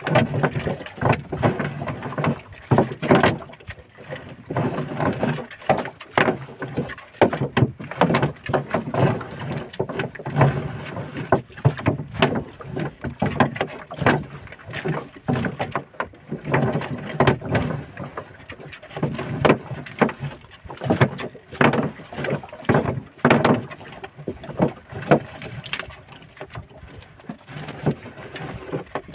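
Collapsible net crab traps being thrown over the side of a small wooden boat one after another: a busy, irregular run of splashes and knocks.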